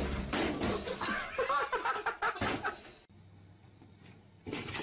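People laughing loudly for about three seconds. Then the sound drops abruptly to a quiet background, with a brief noisy burst near the end.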